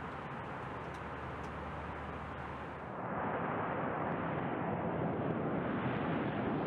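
Jet aircraft in flight: a steady rushing engine noise with a low hum beneath, growing louder about three seconds in.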